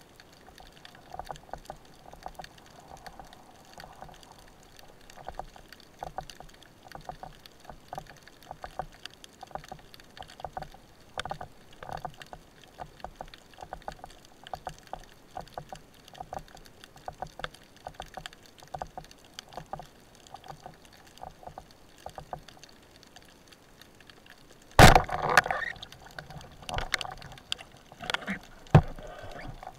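Underwater ambience of faint, irregular clicks and crackles, then about 25 seconds in a speargun fires with a sudden loud crack, followed by several more clattering knocks from the shaft and line.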